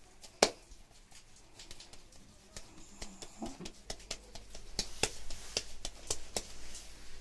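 Hands patting and slapping a ball of pizza dough from palm to palm. One sharper slap comes about half a second in, then soft pats come quicker and closer together through the second half.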